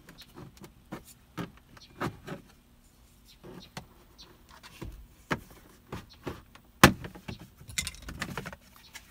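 Plastic passenger-side dashboard end cap of a 2017 Honda Ridgeline being pried off with a plastic trim tool: scattered clicks, taps and scrapes of plastic, with a loud sharp snap about seven seconds in as the panel's clips let go.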